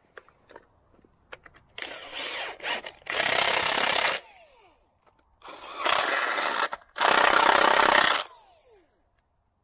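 Cordless Milwaukee impact wrench tightening two bolts in turn. Each bolt gets a short run-down, then about a second of loud hammering as the nut draws tight, and the motor's pitch falls away as it spins down afterward.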